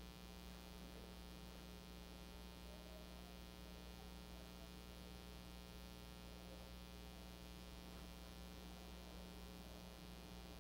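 Near silence: room tone with a steady, low electrical mains hum.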